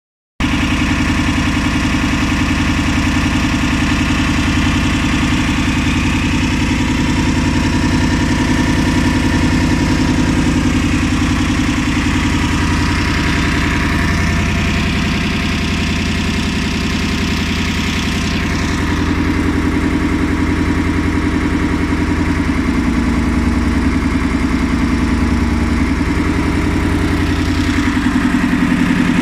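Diesel engine of a 150-ton Coles crane running steadily. Its note drops slightly near the end.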